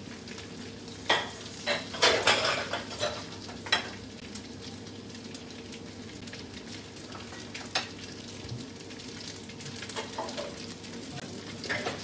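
Dried anchovies (ikan bilis) sizzling steadily in hot oil in a wok, being fried until crisp and fragrant. Sharp clicks and scrapes from a silicone spatula stirring them come in a bunch about one to four seconds in and again near the end.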